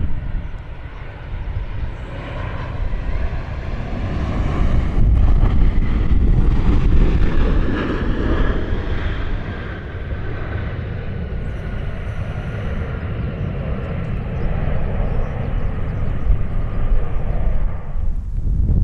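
Airliner passing close by on its landing approach, its engine whine sliding slowly down in pitch as it goes past, over heavy wind rumble on the microphone. The sound cuts off suddenly near the end.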